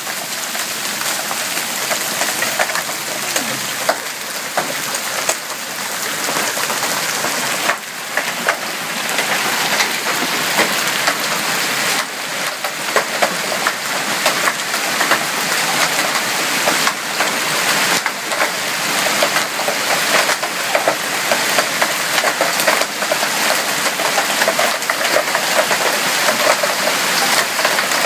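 Hailstorm: hailstones pelting down in a dense, continuous patter of many small impacts.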